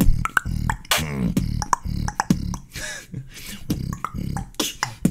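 Human beatboxing in a trap-style breakdown: quick mouth-made kick, snare and hi-hat hits over a low humming vocal bass.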